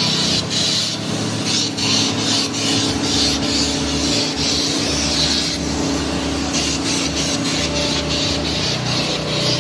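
Compressed-air paint spray gun hissing in bursts that start and stop every second or two as the trigger is worked, over a steady low hum.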